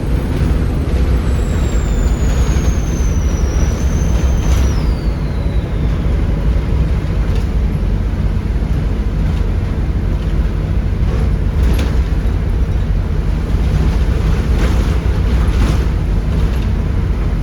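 Volvo B7RLE bus's 7.3 litre Volvo D7C diesel engine running under way, heard on board as a steady low rumble. Over the first few seconds a high turbo whistle falls in pitch as it winds down. A few short knocks or rattles come later.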